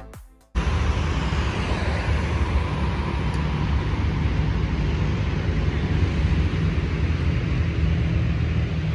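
Steady road traffic noise with a low rumble, cars on the street beside the walker; it starts abruptly about half a second in, right after background music fades out.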